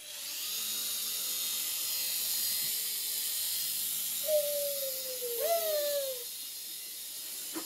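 Toy remote-control helicopter's small electric motors starting suddenly and then whirring steadily as it flies, with two falling tones about halfway through.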